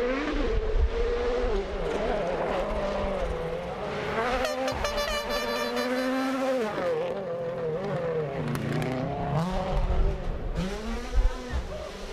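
Rally car engine at high revs, its pitch rising and falling again and again as the driver works through gears and lifts on the stage. There is a brief run of rapid crackling about halfway through.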